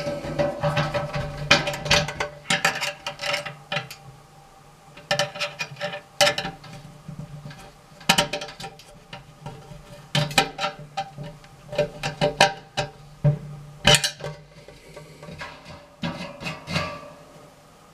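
Clinks and scrapes of a curved stainless steel mesh screen being fitted inside the stainless kettle of an Arsegan EasyBrew 30, coming in irregular clusters of sharp metallic clicks, with the kettle body ringing faintly underneath.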